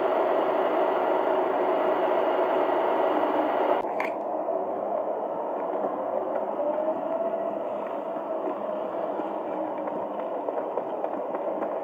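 Volvo FE kerbsider bin lorry running, a steady mechanical drone with a held whine in it. About four seconds in the sound drops abruptly and becomes duller as the lorry is heard from farther off, and the whine rises slightly in pitch partway through.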